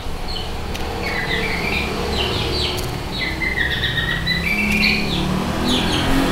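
Small birds chirping again and again over a steady low engine rumble.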